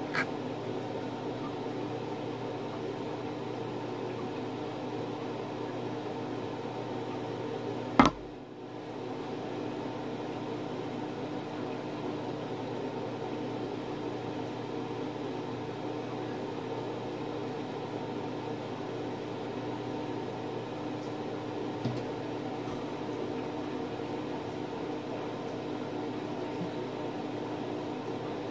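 A steady motor hum with several fixed low tones. One sharp click comes about eight seconds in, and a fainter click later.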